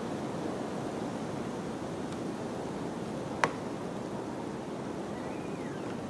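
Steady rain falling in a forest, an even hiss of water. One sharp click about halfway through, and a faint chirp near the end.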